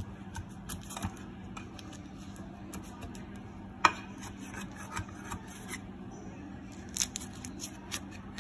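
A knife blade scraping and clicking against the sides of a metal baking pan as it is run around the edges to loosen a baked cake. There are scattered short scrapes and taps, with one sharp click about four seconds in, the loudest, and a few more near the end.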